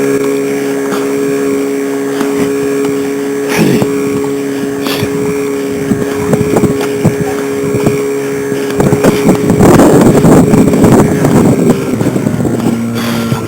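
Outboard motor on an aluminium dinghy running at a steady pitch, with water splashing around it in irregular bursts that grow loudest about two thirds of the way in. Near the end the motor's note drops lower.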